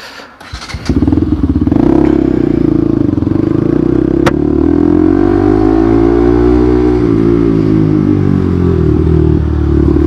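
Bajaj Pulsar NS200 motorcycle's single-cylinder engine comes in about a second in as the bike sets off, its pitch rising as it accelerates and dipping briefly about seven seconds in before climbing again. There is one sharp click about four seconds in.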